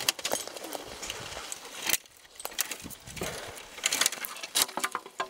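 Footsteps crunching on dry forest litter while dead twigs and branches snap, scrape and rustle against clothing, a quick series of sharp cracks and clicks with one louder crack about two seconds in.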